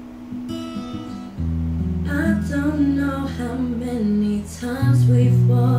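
A song with guitar and a singing voice playing back from a Sansui D-90WR double-reverse cassette deck through a home stereo; a deep bass line comes in about one and a half seconds in, and the voice enters shortly after.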